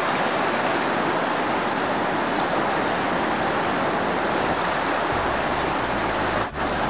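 River rapids rushing: a steady, dense roar of whitewater. A deeper rumble joins about five seconds in, and the sound dips briefly near the end.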